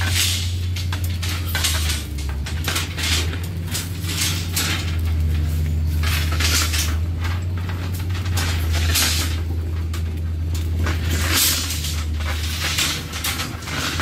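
Steel rebar and tie wire clinking and scraping as a pile reinforcement cage is tied by hand, in irregular metallic clicks, over a steady low hum.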